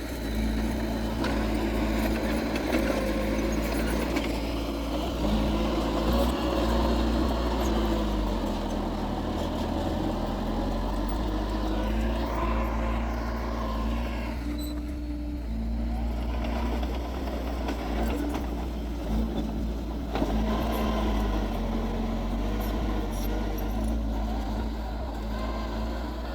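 Diesel engines of earthmoving machinery running continuously, with the engine note shifting as the machines work.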